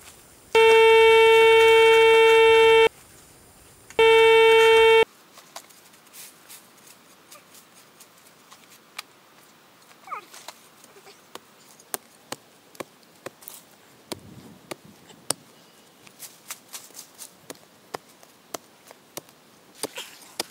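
Metal detector target tone: a loud steady beep lasting about two seconds, then a second, shorter beep a second later, signalling buried metal under the coil. After that come scattered light clicks and scrapes of a small shovel working dry soil.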